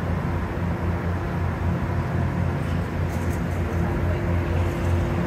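Steady low drone of a Metro-North diesel train, its BL20GHM diesel-electric locomotive running, heard close beside the coaches; a faint higher steady whine joins in near the end.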